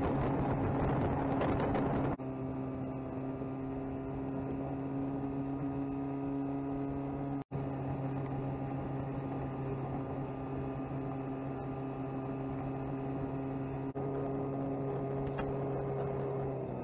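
35 HP Mercury two-stroke outboard running at a steady speed while towing a tube, with water and wind noise over it. The sound breaks off abruptly a few times, with a brief dropout near the middle.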